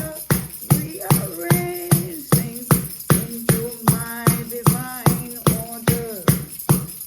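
Music with a steady beat of about two and a half strokes a second and jingling bells, under a held, gliding melody line.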